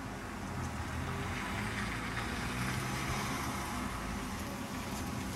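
A car driving slowly close by: a steady low engine hum with road and tyre noise that swells a little midway.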